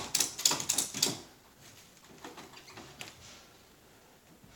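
Ratchet strap being cranked tight around a pinball machine on a dolly: a quick run of sharp ratchet clicks for about the first second, then only a few faint handling taps.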